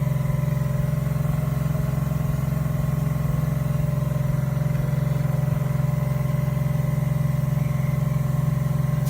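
A machine's motor running steadily with a strong low hum, which cuts off suddenly at the end.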